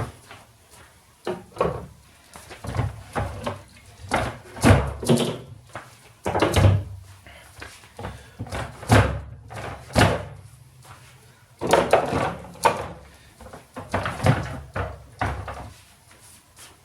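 A string of irregular knocks, thuds and clunks as items are packed into a small stainless-steel mini fridge and its door and shelves are handled.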